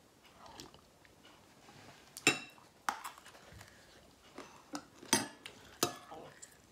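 Metal spoon clinking against a ceramic soup bowl: four sharp clinks with a short ring, spread from about two to six seconds in.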